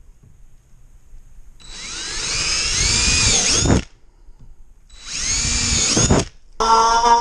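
Power drill boring the two end holes of a slot through a plastic kayak seat: two bursts of about two seconds and one second, its whine rising and dipping as the bit cuts. Just before the end a second power tool starts with a steady buzz, the start of cutting out the slot.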